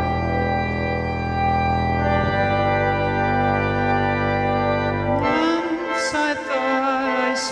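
Organ playing long held chords, the low notes shifting to a new chord about two seconds in. About five seconds in, a voice starts singing over it.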